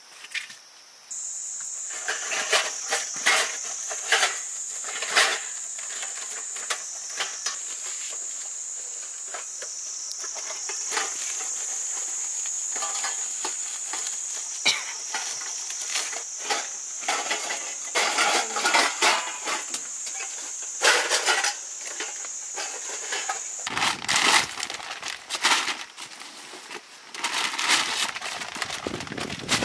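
Steady high-pitched insect drone, with many irregular clicks and knocks over it; the sound changes abruptly twice near the end.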